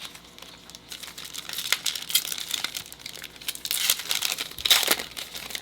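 Trading-card pack wrappers crinkling and crackling as they are handled, with a louder crackling burst near the end.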